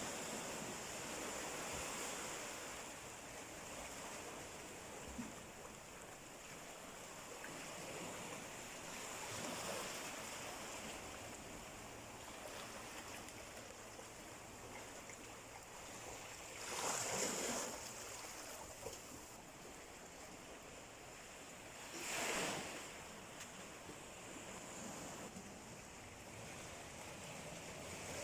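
Sea waves washing on the shore in a steady surf hiss that swells and ebbs, with two louder breakers about two-thirds of the way through, a few seconds apart.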